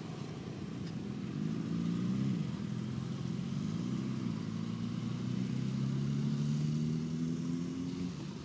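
A motor vehicle's engine running, a low steady hum that wavers twice, then climbs slowly in pitch and stops about eight seconds in.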